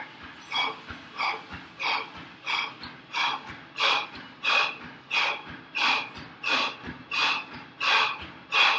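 A man's sharp, forceful breaths out, one with each kick, in a steady rhythm of about one and a half a second: paced breathing under exertion during a fast repeated kicking exercise.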